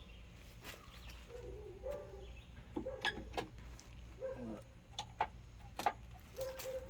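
Scattered light clicks and taps, irregularly spaced, with faint short bits of voice in the background.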